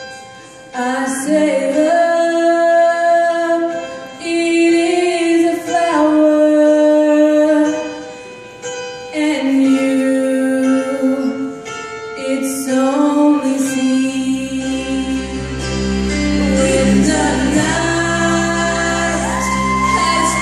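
A woman singing solo into a microphone over instrumental accompaniment, in long held notes that swell and break between phrases, carrying in a large hall. About 14 seconds in a low bass part comes in and the accompaniment fills out.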